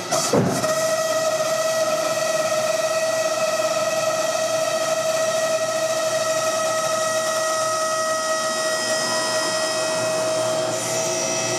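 Hydraulic pump running with a steady whine as it drives the FG-1D Corsair's main landing gear up during a retraction test. It starts with a short clunk just after the beginning.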